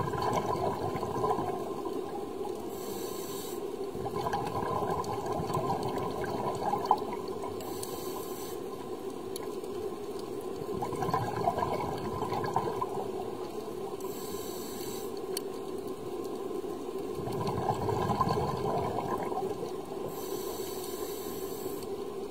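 Scuba diver breathing through a regulator, heard underwater: a short hiss on each breath in and a longer bubbling rush of exhaled bubbles, repeating about every six to seven seconds, over a steady low hum.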